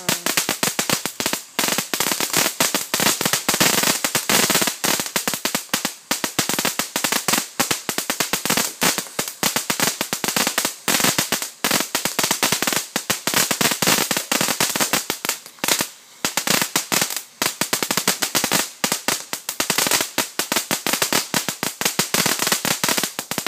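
The Big Whistler ground fountain firework burning, spraying sparks with a continuous dense crackling hiss made of many rapid pops.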